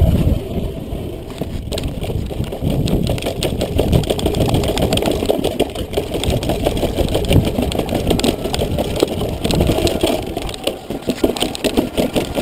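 Mountain bike rolling over hexagonal paving stones: a steady rumble from the tyres with a fast rattle of vibration from the bike.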